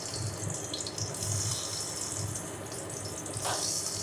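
Peeled boiled eggs sizzling in hot mustard oil in a kadai as they are slipped in one by one; the steady frying hiss swells briefly about three and a half seconds in as another egg goes in.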